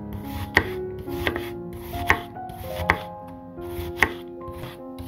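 Kitchen knife chopping a peeled onion on a wooden cutting board: five sharp knocks of the blade against the board, a little under a second apart, over background music.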